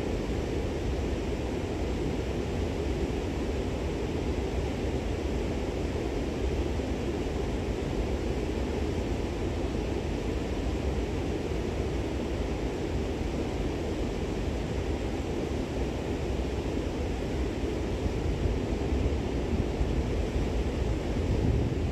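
Steady rushing noise of river rapids, with wind on the microphone; no distinct events.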